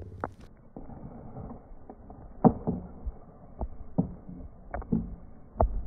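A series of irregular sharp thumps and knocks, about eight in all, the loudest about two and a half seconds in, over a low rumble.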